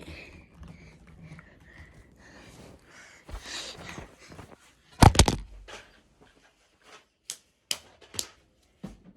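A single loud thump about five seconds in, followed by three quick sharp clicks near the end.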